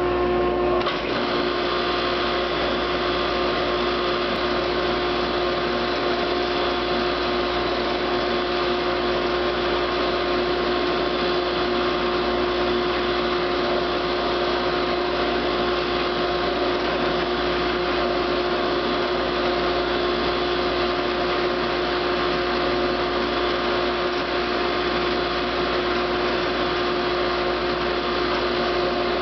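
Electric woodworking shop machinery switched on and running steadily with no wood fed through: a motor whir with a strong steady hum, at full speed within about a second of starting.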